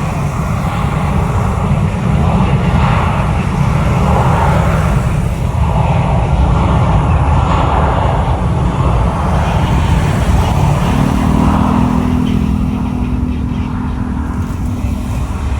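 Jet airliner engines as a loud, steady rumble from an aircraft moving on the runway. A steady low hum with overtones comes in about eleven seconds in.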